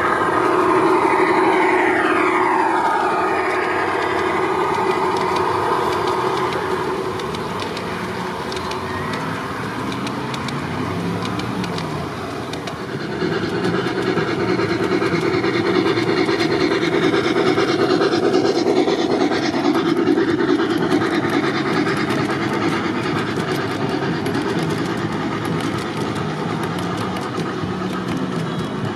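G-scale model trains running on outdoor track: motor hum and wheels rolling on the rails, with gliding high tones in the first few seconds. It grows louder about halfway through as a long train of freight cars rolls past close by.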